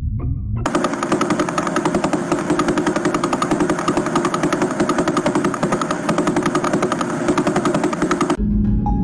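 Space radio or plasma signal converted into sound: a fast, even pulsing buzz. It starts abruptly about a second in and cuts off suddenly near the end.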